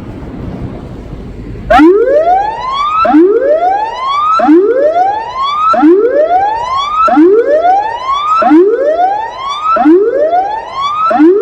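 Tsunami warning siren cluster sounding a whoop tone during a siren test. About two seconds in, after wind noise on the microphone, it starts a run of loud rising sweeps, each cut off sharply as the next begins, roughly one every 1.3 seconds.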